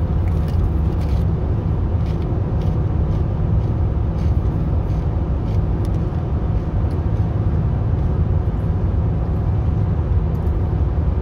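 Steady low road and engine rumble inside a moving car's cabin. Faint crunches of a kettle-cooked potato chip being chewed come through in the first few seconds and again near the end.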